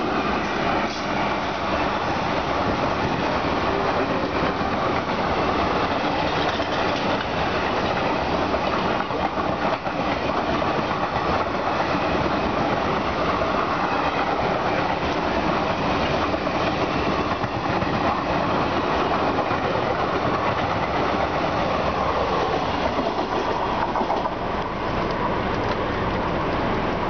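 An express passenger train hauled by a WAP4 electric locomotive rushing past on the adjacent track, a long, steady clatter of coach wheels over the rails.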